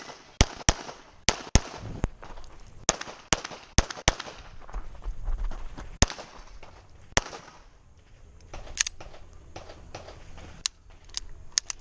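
Handgun shots fired in quick succession: about ten sharp cracks in fast pairs over the first four seconds, then a few single shots spaced a second or more apart. This is a competitor shooting a timed stage after the start beep.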